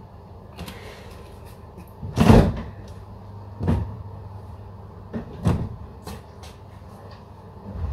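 Kitchen tidying: a handful of separate knocks and clunks of cupboard doors and kitchenware being put away, the loudest about two seconds in, over a steady low hum.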